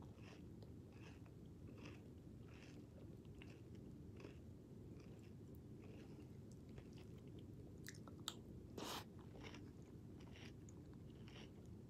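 Close-up chewing of a mouthful of cinnamon toast cereal squares in milk: soft, wet crunches about once or twice a second, with a short, louder scrape about eight to nine seconds in.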